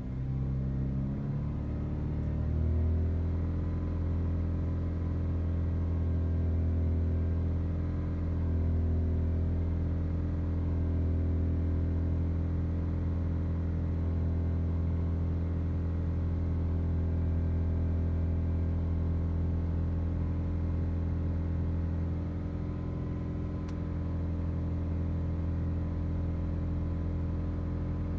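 2015 Chevy Malibu engine revved up from idle over the first few seconds, then held at a steady raised speed near 2500 RPM. The engine is running lean, with a long-term fuel trim around 30%, which the owner puts down to sticking fuel injectors.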